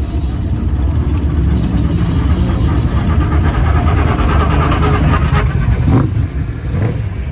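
Racing car engines running at low speed with a deep, loud rumble, with two sharp cracks about six and seven seconds in.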